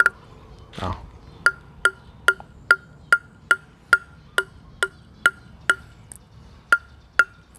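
A plastic table tennis ball bounced steadily on the face of a DHS Hurricane Long V blade, which has limba outer plies and inner ALC carbon. It gives a short pitched tock a little over twice a second, starting about a second and a half in.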